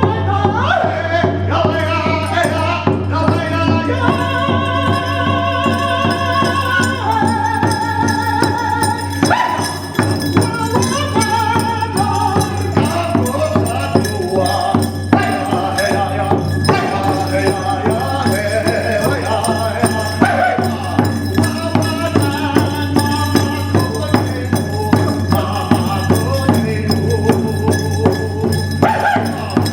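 A man singing a song in the Mohican language, with a steady beat of about one stroke every 0.7 s coming in about a third of the way through.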